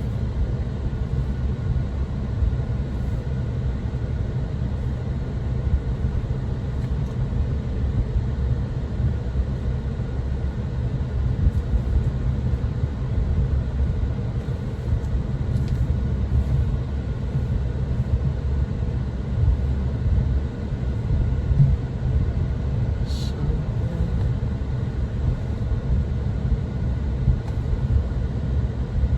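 A car driving, heard inside the cabin: a steady low rumble of engine and road noise.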